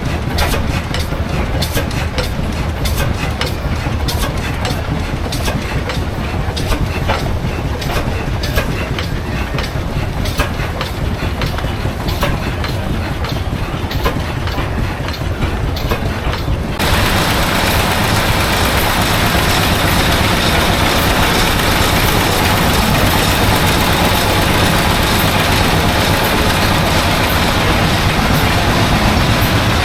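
Machinery running with a steady low rumble and fast clicking. About seventeen seconds in it changes abruptly to a louder, steady rushing noise.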